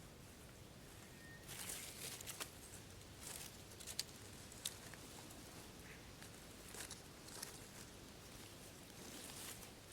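Wood fire crackling faintly, with scattered soft hissing bursts and two sharp pops about four seconds in.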